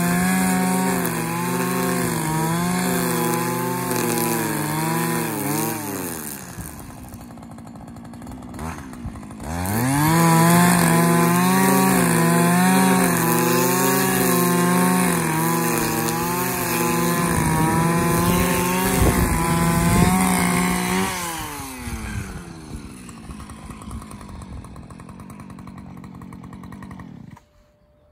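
Husqvarna 545RX two-stroke brushcutter with a trimmer-line head running at high revs, its pitch wavering as it cuts grass. About six seconds in the revs drop away, rise again near ten seconds, fall to idle around twenty-one seconds, and the engine cuts off suddenly near the end.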